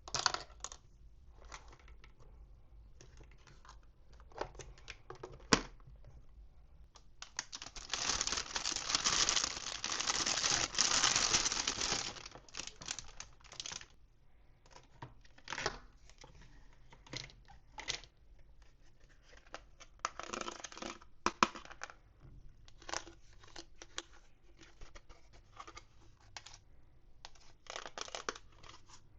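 Toy packaging being opened by hand. About a quarter of the way in there is a loud tearing that lasts about five seconds; otherwise there are scattered short crinkles, rustles and a few sharp clicks.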